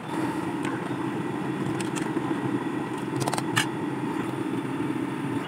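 Steady noise of a stove burner flame heating a large aluminium pot of liquid at the boil, with a few light clicks a little past halfway.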